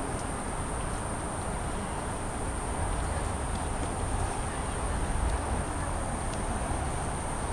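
Steady outdoor city ambience: an even hum of distant traffic with a low rumble, and a thin, steady high-pitched tone above it.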